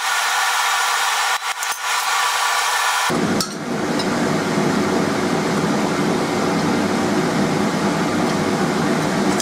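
A steady motor whine with a few light clicks about a second and a half in. About three seconds in it switches abruptly to a deeper, steady fan-like hum.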